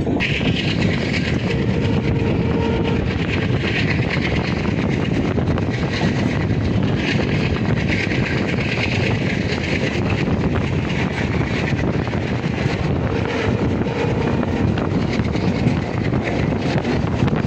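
Passenger train in motion: a steady rumble of wheels on the rails, with a hissing upper layer that swells and fades every few seconds.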